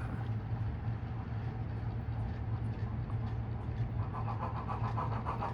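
Model steam locomotive running on metal track with its coaches, with a steady low hum; about four seconds in, a rapid, even rhythmic beat comes in.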